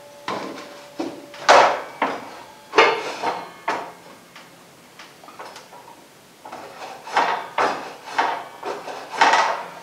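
Plywood pieces handled on a miter saw table: a few sharp knocks and scrapes in the first half, a quieter stretch, then a cluster of rubbing scrapes near the end. The saw motor does not run.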